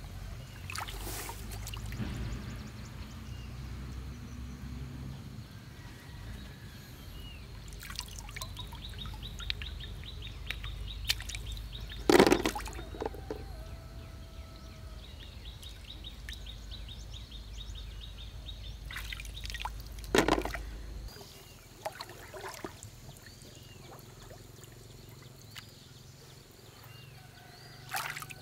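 Shallow muddy water sloshing and trickling as a person wades through it and gropes along the bottom by hand, with two louder splashes, one near the middle and one later on.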